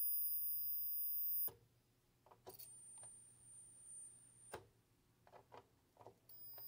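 High-pitched squeal from the TV chassis's horizontal oscillator circuit, running well off its proper frequency. It cuts out with a click about a second and a half in, comes back briefly at a higher pitch, cuts out again with a sharp click, and returns at its first pitch near the end, with a few light clicks and taps from the chassis being handled.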